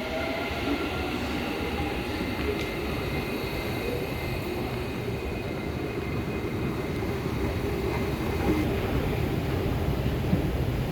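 Dubai Metro train running, a steady rumble and hiss that grows a little louder in the second half.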